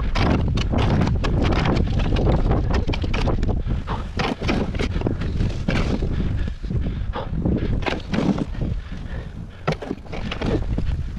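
Wind buffeting the microphone in a steady low rumble, with a run of short, irregular scrapes and crunches over it, thicker in the first half.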